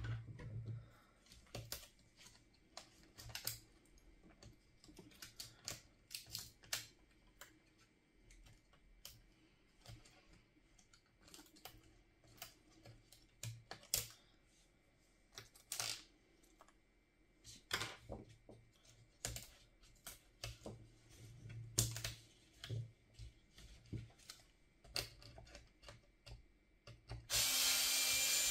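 Scattered light clicks and taps of small plastic and metal laptop parts and tools being handled during disassembly. About a second before the end, a loud steady hissing whir starts and keeps going.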